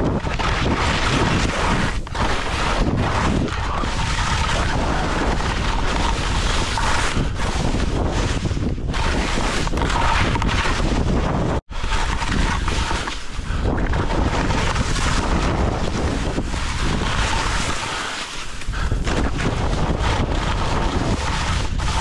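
Wind buffeting the microphone of a skier's action camera, mixed with the hiss and scrape of skis carving soft spring corn snow at speed. The sound cuts out for an instant about halfway through.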